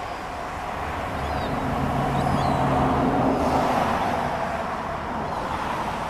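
Steady urban traffic noise, with an engine hum swelling and fading as a vehicle passes about two seconds in. A few faint high chirps sound on top.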